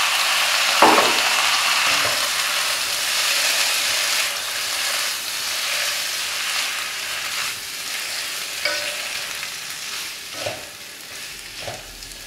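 Stir-fry of abacus seeds sizzling in a hot non-stick wok as a splash of water boils off, the sizzle fading steadily. It is turned over with a plastic slotted spatula, with a few knocks of the spatula against the wok about a second in and near the end.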